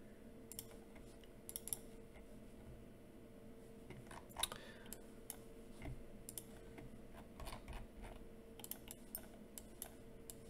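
Faint, irregular clicking at a computer keyboard and mouse, the clicks coming in small clusters, over a faint steady hum.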